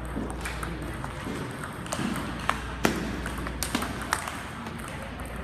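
Table tennis ball clicking off the bats and the table in a rally: a run of sharp ticks from about half a second to about four seconds in. Behind it is the steady hum of a large hall.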